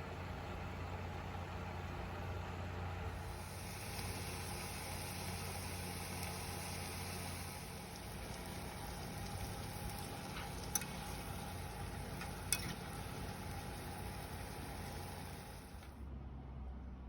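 Chicken wings sizzling as they fry in a pan, a steady hiss over a low hum, with two sharp clicks about two-thirds through; the sizzle stops shortly before the end.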